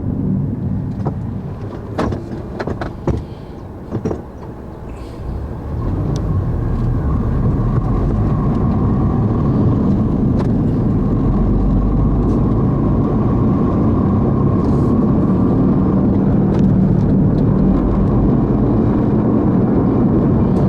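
Steady engine and road drone, as of a car or truck being driven. A few sharp knocks come two to four seconds in, and after about six seconds the drone settles louder and more even.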